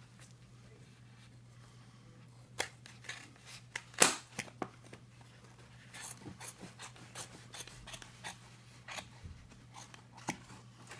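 Angled bandage scissors snipping through the cloth stockinette and padding of a leg cast as it is removed. A series of short, sharp snips starts about two and a half seconds in and is loudest around four seconds, then comes faster, a few snips a second, in the second half.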